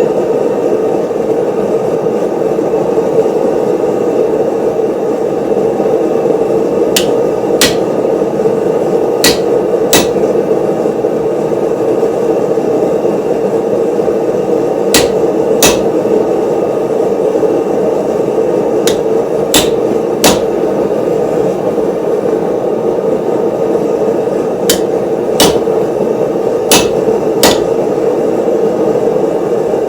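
Hand hammer striking steel while forging a cleaver blade. The blows come in pairs, once in threes, with pauses of a few seconds between groups, starting about a quarter of the way in. A steady loud rushing noise runs underneath.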